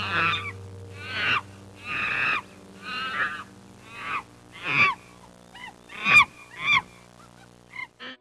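An animal calling over and over: about a dozen short calls that fall in pitch, roughly one every two-thirds of a second, the later ones shorter and clipped. A steady low background tone runs underneath.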